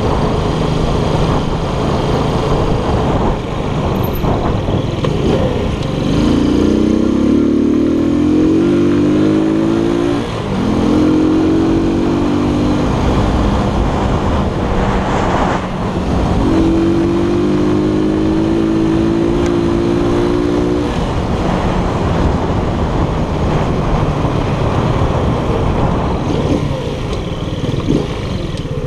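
Keller Crono 110 moped's 110 cc engine running under way, heard from on board. Its pitch climbs three times as it accelerates, breaking off briefly about ten seconds in before rising again.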